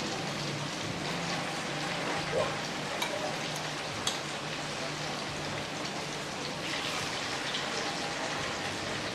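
Battered tofu fritters sizzling steadily in hot frying oil, with a few light clicks of a utensil against the pan.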